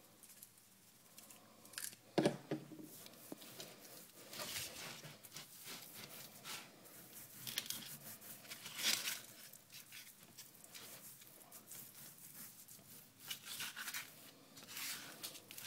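Hands rubbing seasoning and steak sauce into raw steaks on a plate: irregular wet rubbing and smearing strokes, with a louder knock about two seconds in.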